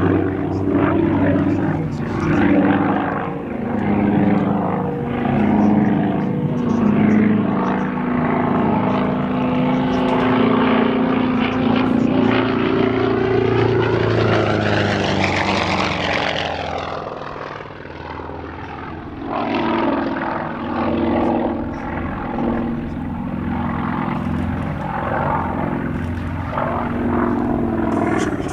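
Sukhoi Su-31M aerobatic plane in display flight. Its nine-cylinder radial engine and propeller change pitch as the power is varied through the manoeuvres. About halfway through the sound swells and sweeps up and then down in pitch as the plane passes, then drops away briefly before the engine note comes back.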